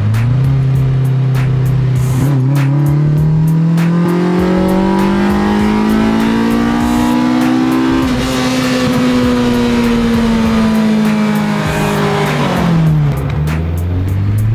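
Four-cylinder SR20VE Neo VVL engine of a Nissan taxi in a full-throttle pull. The revs climb smoothly for about eight seconds, then fall back over the next five, and pick up again near the end.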